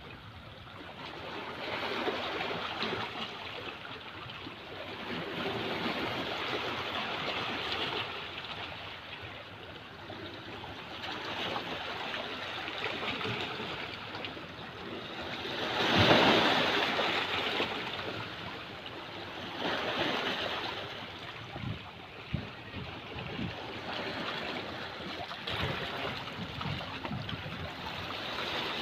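Small sea waves washing and splashing against shoreline rocks in swells every few seconds, with one louder surge about halfway through.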